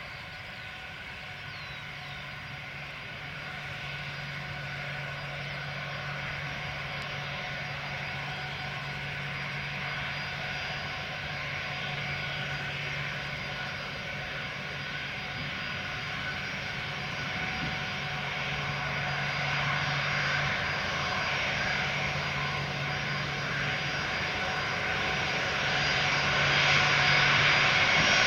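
Ilyushin Il-76TD's four Soloviev D-30KP turbofan engines whining at taxi power, with several steady high tones, growing steadily louder as the jet taxis closer and swings to face the listener near the end.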